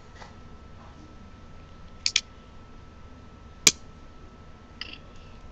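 A few sharp plastic clicks and taps as toy wrestling figures are handled in a toy ring: a quick double click about two seconds in, a louder single click a little past the middle, and a fainter one near the end, over a faint steady hum.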